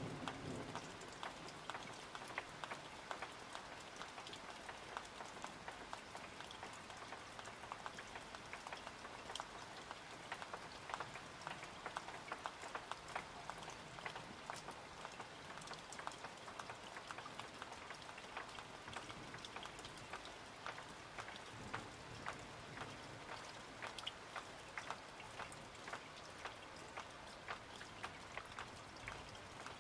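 Steady rain falling, with many separate drops ticking on nearby surfaces.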